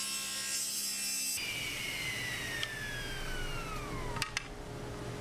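Table saw ripping a thin strip of walnut, running steadily. About a second and a half in, the cutting sound stops abruptly, and the blade winds down with a steadily falling whine. Two sharp clicks come near the end.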